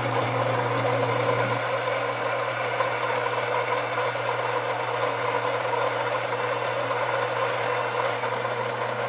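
Gaggia Brera espresso machine's built-in ceramic burr grinder grinding beans for a shot: a steady motor hum with an even grinding rasp over it, called very quiet.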